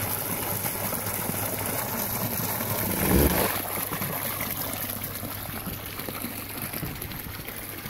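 Pond water gushing out of the end of a corrugated pump discharge hose and splashing into the pond, a steady rushing splash; the flow is strong and at good pressure. A brief louder thump comes about three seconds in.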